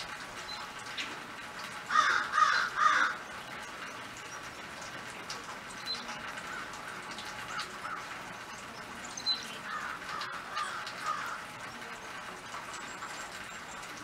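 Crow cawing: three loud caws in quick succession about two seconds in, then a fainter run of caws near the end, over steady background noise.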